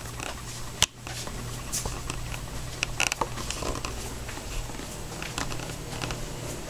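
Handling noise from a handheld camcorder carried through the rooms: a steady low hum with scattered light taps and clicks, and one sharp click about a second in.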